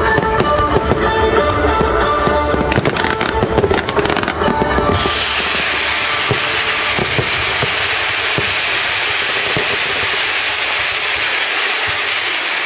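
Fireworks bursting with bangs over music. About five seconds in the sound changes to a dense, steady crackle as showers of crackling stars fall.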